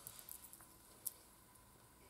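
Faint clicks and rustling of a silver chain necklace being handled and fastened: a few light ticks in the first half-second and one sharper click about a second in.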